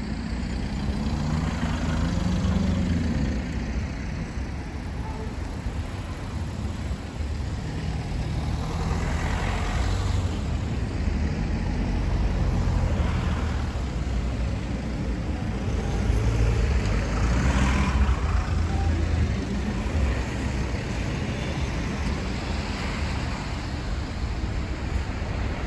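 City street traffic: a steady low rumble of road vehicles, with several passing by and swelling louder.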